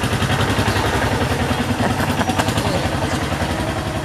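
Small vehicle engine running steadily with a rapid, even putter, easing a little in level toward the end.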